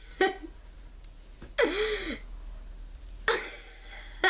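A boy laughing in three short bursts, the longest about halfway through.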